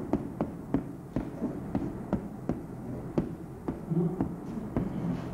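Chalk tapping against a blackboard while writing: a run of short, sharp taps, about two or three a second, over a low steady hum.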